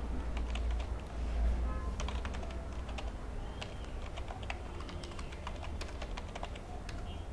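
Typing on a computer keyboard: quick keystroke clicks in irregular runs, over a low steady hum.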